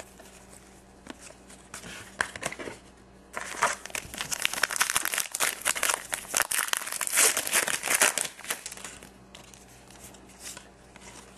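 Foil trading-card pack wrapper being torn open and crinkled: a dense run of crackling from about three seconds in until about nine seconds. Lighter rustle of cards being handled comes before and after it.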